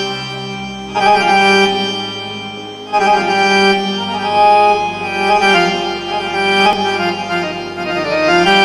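Music for belly dance: an unmetered taqsim, a reedy melody instrument holding long ornamented notes over a steady low drone, with new phrases entering about a second in and again about three seconds in.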